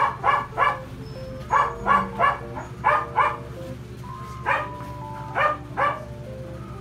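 A dog barking repeatedly in short runs of two or three barks, over background music with held notes.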